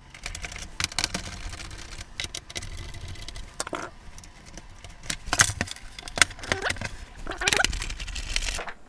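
Screwdriver backing the screws out of the plastic bottom case of a Tandy Color Computer 3, with scattered clicks and knocks from the tool, the loose screws and the case being handled.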